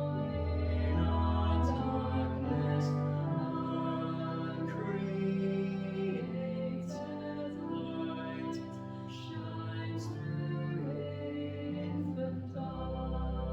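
Slow hymn music: sustained sung notes over an instrumental accompaniment with a moving bass line.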